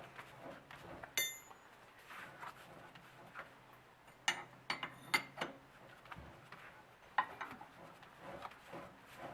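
Metal clinks and knocks from a 4-jaw lathe chuck being handled and fitted onto the lathe spindle. There is one ringing clink about a second in, a cluster of sharp knocks around the middle, and another knock near the end.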